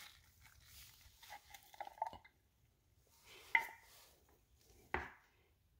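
Glass jar being opened and handled: a faint scraping as its screw-top lid is twisted off, then two sharp clicks about three and a half and five seconds in, the first the loudest.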